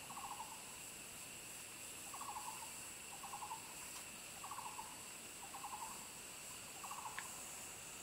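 A short, rapid trilled animal call repeated six times, one to two seconds apart, over a steady high hum.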